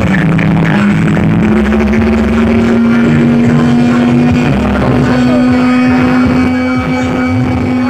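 Very loud sound-horeg speaker stacks playing bass-heavy music: one long held buzzing tone over deep pulsing bass.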